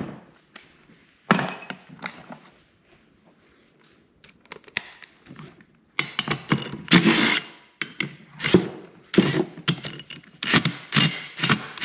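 Hand tools and metal parts of a table saw being handled during disassembly: a sharp knock about a second in, then a busy run of irregular clanks and scrapes in the second half.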